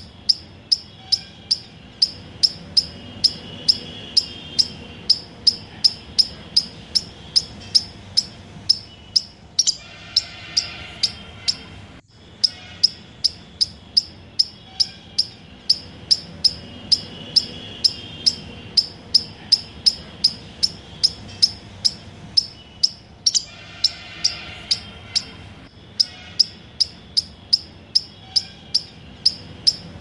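An insect chirping in a steady rhythm, about two short high chirps a second, over a soft continuous background with fainter chirps and calls coming and going.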